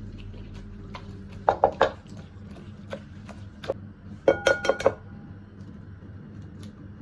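Sharp clinks and taps on a glass mixing bowl: a quick group about a second and a half in, then a louder group about four and a half seconds in that rings briefly, as an egg is knocked against the bowl's rim to crack it.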